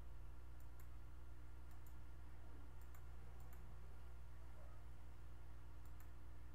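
Computer mouse button clicks, short and sharp and mostly in quick pairs, about five times, over a steady low hum.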